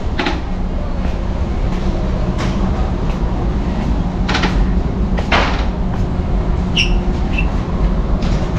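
Warehouse store ambience: a steady low rumble with a few scattered knocks and clatters, and two short high beeps near the end.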